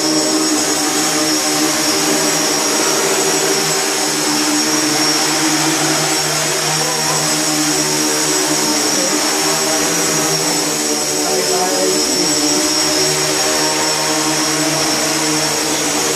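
An X8 octocopter's eight motors and propellers, paired coaxially on four arms, running in a steady whir as it hovers low. The pitch shifts slightly now and then in the middle as the throttle is worked.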